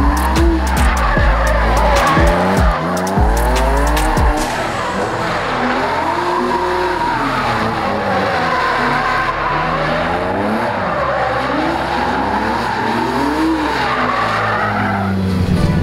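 BMW E36 drift car's engine revving up and down again and again, with tyres squealing and skidding as the car slides through donuts.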